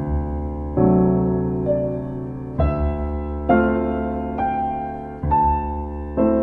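Slow, soft piano music: chords struck about once a second, each left to ring and fade.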